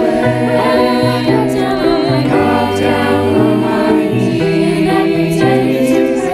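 Virtual choir of teenage girls, separately recorded voices mixed together, singing a slow song in harmony.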